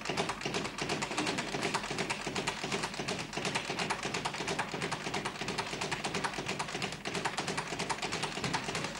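Boxing gym noise: a rapid, constant patter of sharp taps and thuds, many a second, from sparring gloves, footwork on the canvas and other training around the ring.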